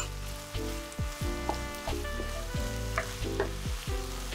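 Minced meat and shimeji mushrooms sizzling in a pan as a wooden spatula stirs them through a freshly added sauce, with scattered sharp clicks of spatula on pan. Background music with low held notes plays throughout.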